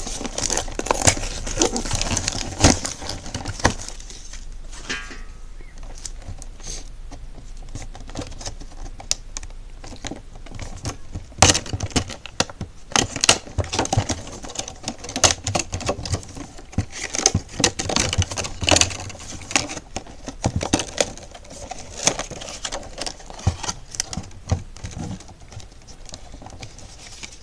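Clear plastic packaging and paper being handled and torn open by hand: irregular clicking, crackling and crinkling, in bunches of sharp ticks with rustling between.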